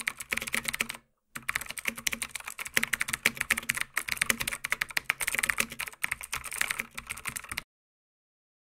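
Computer keyboard typing sound effect: quick, uneven key clicks with a short break about a second in, stopping suddenly near the end.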